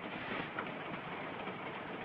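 Steady running noise of a moving train, heard from inside a passenger coach.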